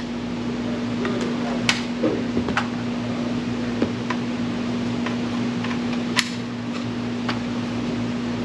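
Steady machine hum at one pitch, with a few scattered light clicks and ticks over it.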